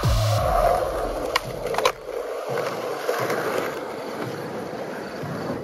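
Skateboard wheels rolling on concrete, with two sharp clacks of the board about a second and a half in and just under two seconds in.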